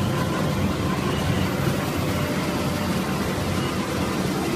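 Wood crushing and grinding production line running: a loud, steady machine din from its motors, mill and air handling, with faint steady hum tones under it.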